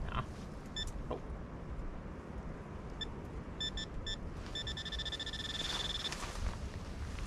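Handheld metal-detecting pinpointer probe beeping in short electronic chirps, then holding a steady tone for about a second and a half midway through as it is worked into the soil over a buried target. Wind rumbles on the microphone underneath.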